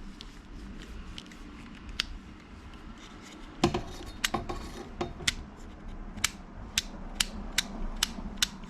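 Hand ratchet driving in the Torx screws of a door lock actuator: a few knocks and clunks about three and a half seconds in, then a run of sharp clicks about two a second as the ratchet is worked back and forth.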